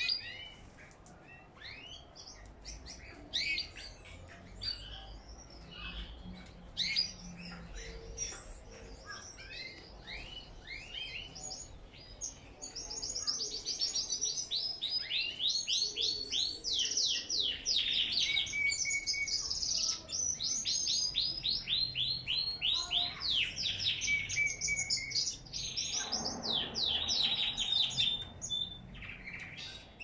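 Pet canaries and Lady Gouldian finches calling and singing: scattered short chirps at first, then from about twelve seconds in a loud, continuous song of fast trills that runs until just before the end.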